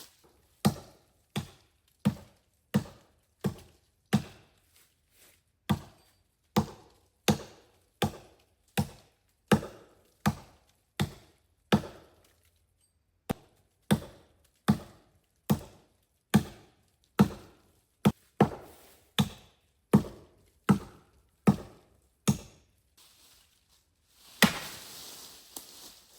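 Wood being chopped, most likely firewood for a wood stove, in a steady run of sharp strokes about three every two seconds, with a brief pause partway through. Near the end the strokes stop and a louder rushing noise takes over.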